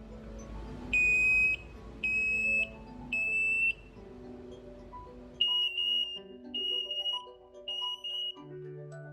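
Emerald Ranger RF smoke alarms sounding their test alarm: three long, shrill beeps about a second apart. About five seconds in, a slightly higher-pitched alarm beeps in the same three-beep rhythm, as the interconnected alarms sound together.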